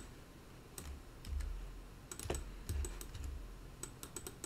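Irregular clicks of a computer keyboard and mouse as keys and mouse buttons are pressed, some coming in quick clusters.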